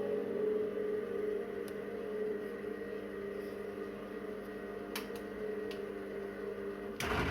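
Washing machine running: a steady motor hum of several tones, with a few faint clicks, cut off near the end by a sudden louder rushing noise.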